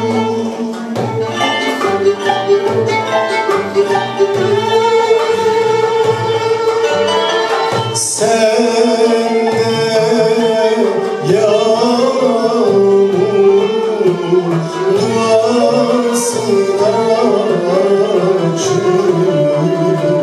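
Male solo voice singing a Turkish art music song, accompanied by an ensemble with violins. Long held notes give way to ornamented, wavering melodic lines in the second half.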